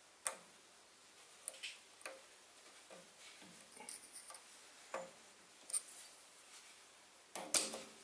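Light clicks and taps of small metal parts and a hex key being handled as the compound slide's feed dial and spring are fitted back on a Sieg SC3 mini lathe, with a louder clatter near the end.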